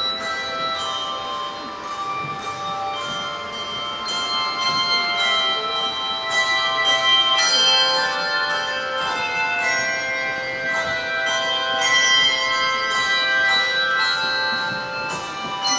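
A bell choir's handbells playing a Christmas medley: many bells struck one after another in a melody, each tone ringing on and overlapping the next.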